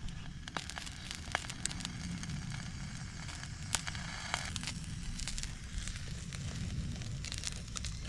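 Chijimi batter sizzling inside a Baulou hot sandwich maker set over a wood campfire, with many scattered crackles and pops, over a low steady rumble.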